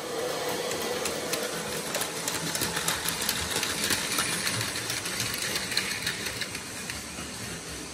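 Plarail Advance toy trains running on plastic track: the small electric motors whir steadily and the wheels make rapid, irregular clicks over the rail joints.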